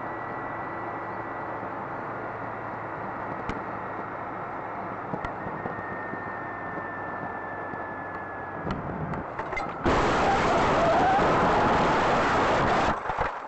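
Steady road and engine noise inside a moving car, recorded by a dashcam. About ten seconds in, a sudden loud crash breaks out as the car collides: about three seconds of dense, heavy crashing noise that cuts off abruptly.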